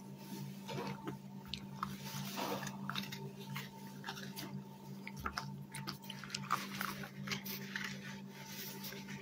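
A dog chewing and crunching small round treats, with irregular crisp crunches and clicks of its teeth. A faint steady hum lies underneath.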